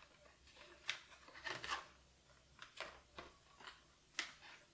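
Faint handling sounds: a scattered series of about six light clicks and short rustles as watercolour paint tubes and their packaging are handled.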